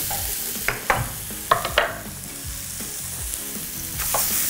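Eggs frying in oil in a non-stick pan, with a steady sizzle. There are a few sharp knocks in the first two seconds, and the sizzle grows louder near the end as a fork stirs the mixture in the pan.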